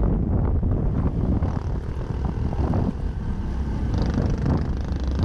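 Honda Cross Cub 110's small single-cylinder engine running steadily while riding, with road and wind noise.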